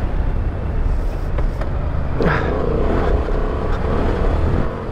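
Honda Transalp 750's parallel-twin engine running hard under off-road riding, over a heavy low rumble. About two seconds in, the engine revs up sharply.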